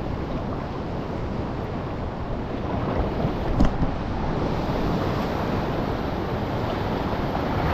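Sea swell washing against a rock jetty, with wind rumbling on the microphone. A short knock sounds about three and a half seconds in.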